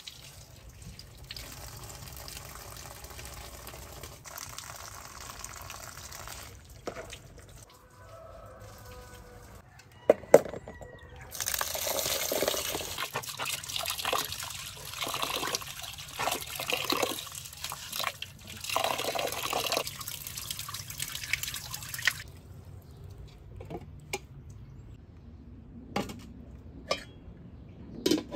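Hand swishing and rubbing rice in water in an aluminium pot, the water sloshing in repeated pulses: rinsing rice before cooking. A couple of sharp metal knocks come about ten seconds in, and a few clinks of the pot and its metal lid near the end.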